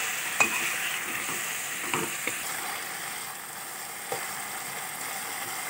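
Spice paste and potato cubes frying in hot oil in a kadai, sizzling steadily while a metal spatula stirs them. The spatula knocks and scrapes against the pan a few times. This is the masala being sautéed (kosha).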